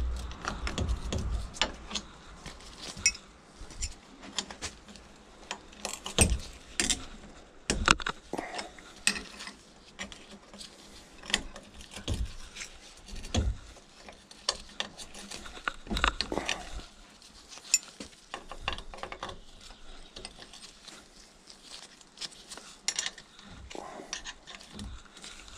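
Ratchet wrench clicking in short runs as screws and studs are undone from a Peugeot 103 moped engine's crankcase, with irregular clinks of metal tools and parts.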